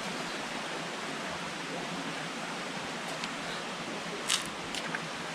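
Steady rush of creek water running over rocks, with a couple of short sharp knocks a little over four seconds in.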